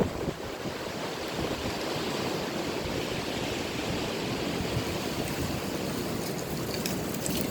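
Wind blowing: a steady rushing noise with no gusts standing out, and a few faint ticks near the end.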